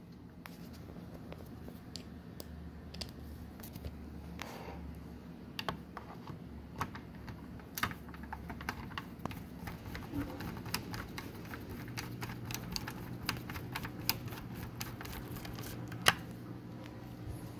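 Screwdriver driving small screws into a DVR's plastic drive retainer and case: a run of light, irregular clicks and ticks, with one sharper click near the end.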